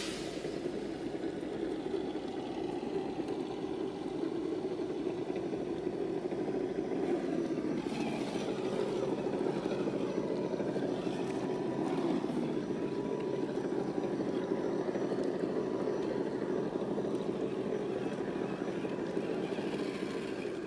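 Scale RC crawler's electric motor and gear drive running, a steady buzzing drone.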